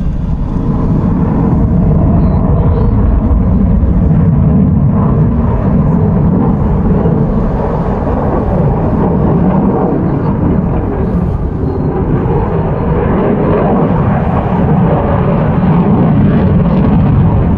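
Jet noise from an F-22 Raptor's two Pratt & Whitney F119 afterburning turbofans as it flies its display: a loud, deep, steady rumble that swells slightly a few seconds in and again near the end.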